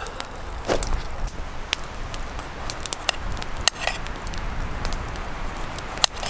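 Knife slicing a potato into thin rounds over a small metal frying pan, with a few sharp clicks and taps spread through, over a low steady rumble of a campfire burning.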